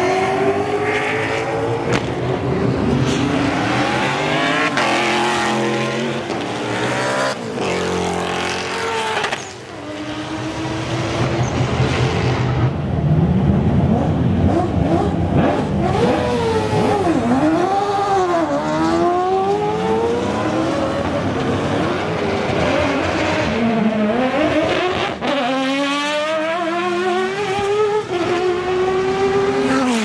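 Racing cars at full throttle on a circuit, passing one after another. The engines climb in pitch through each gear, drop back at the shifts, and fall away as the cars go by.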